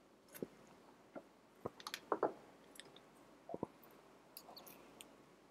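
A few faint, short clicks and smacks, irregularly spaced, with a small cluster about two seconds in.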